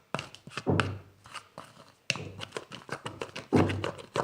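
PVA-glue slime, thickened with Persil, being stirred in a bowl: wet stirring sounds with clicks, surging about every second and a half.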